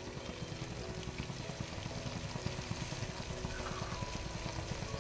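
Mutton and its juices sizzling and bubbling in a pressure cooker on the flame: a steady, dense crackle.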